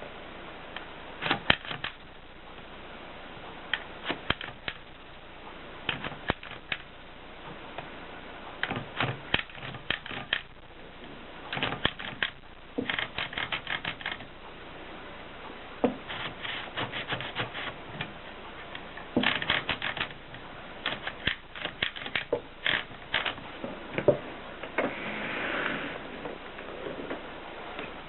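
Adler 7 manual typewriter being typed on: quick runs of sharp key strikes in bursts, with short pauses between them, and a longer rasping sound a few seconds before the end.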